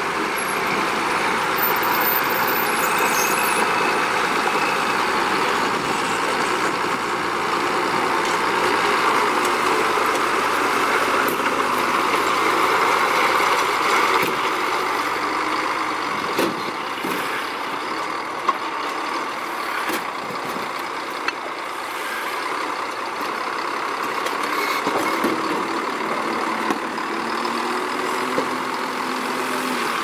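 Heavy construction vehicle engine running steadily, with a few sharp knocks in the second half.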